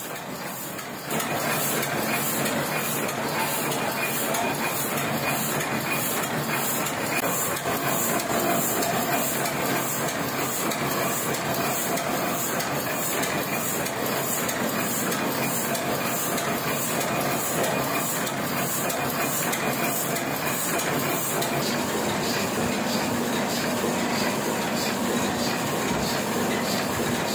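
Small sheet-fed offset printing press running: a steady mechanical clatter with a quick, regular beat as each sheet is fed through.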